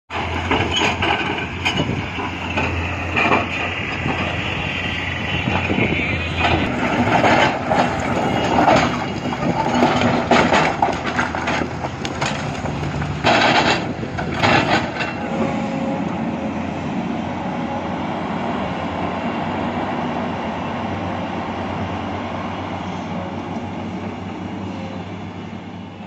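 Hydraulic crawler excavator (Komatsu PC210) running, with loud clattering and banging of large rocks as the bucket scoops boulders and drops them into a steel dump-truck bed. The knocks come thick through the first half, then the engine runs on steadily with only occasional knocks.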